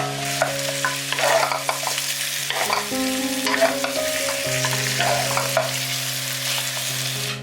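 Deep-fried pork spare ribs being stir-fried in a hot pan with garlic, onion and red chilli: a steady sizzle broken by frequent scrapes and clacks of the spatula.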